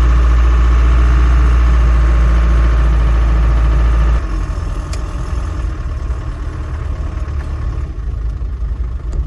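Land Rover Defender driving on a wet road, heard from inside the cab: engine and road noise make a loud low rumble that eases about four seconds in as the truck slows.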